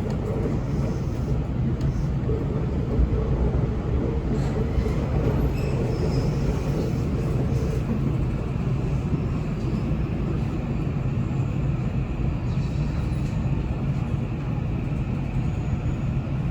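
Electric commuter train running on the Osaka Loop Line, a steady rumble of wheels on rails heard from inside the passenger car.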